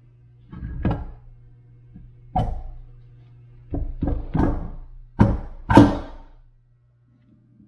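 Wavetrac limited-slip differential and ring gear being rocked and seated by hand into the bearing bores of a Honda K-series transmission case: about seven heavy metal knocks and thunks, the last two loudest.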